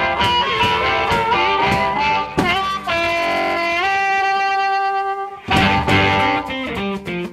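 Background music led by guitar, with a band playing; the notes hold in a sparser passage midway, then the full band comes back in about five and a half seconds in.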